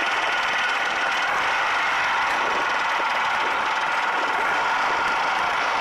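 1971 Panther snowmobile's 760 two-stroke engine running steadily.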